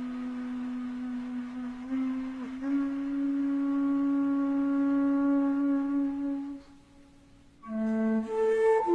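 Slow solo melody of long held notes, one note at a time, with a short break about seven seconds in before it picks up again.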